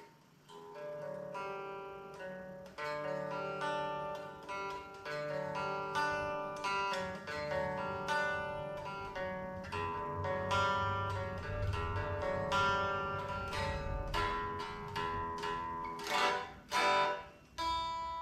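Guitar played: picked notes and ringing chords that start about a second in, with two hard strummed chords near the end.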